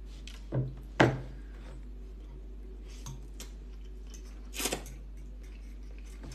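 Metal cutlery clinking against ceramic soup bowls a few separate times, the sharpest clink about a second in.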